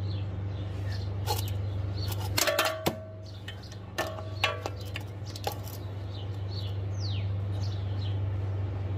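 A steady low hum with a few light clicks and clinks, and a bird's short falling chirp near the end.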